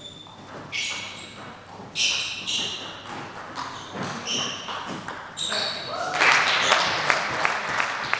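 Table tennis being played in a sports hall: a series of short high-pitched squeaks in the first half, then, from about six seconds in, a run of sharp clicks of the ball over a steady rushing noise.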